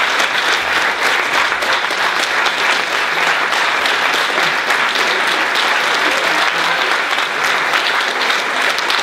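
A large theatre audience applauding steadily: dense, continuous clapping from many hands.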